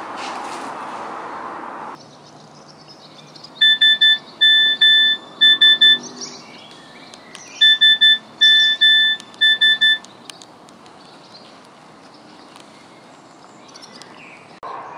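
Nokia mobile phone text-message alert: the classic "SMS" beep pattern of three short, two long and three short beeps, played twice, announcing an incoming text.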